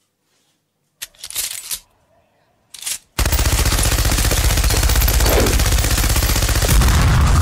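After about a second of silence and a few brief noises, a machine gun opens fire about three seconds in and keeps firing in one continuous rapid burst.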